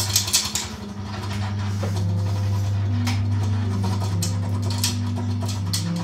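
Improvised electroacoustic music: a steady low drone with held tones above it that shift in pitch, broken by short noisy clicks and scrapes, a cluster near the start and a few more later.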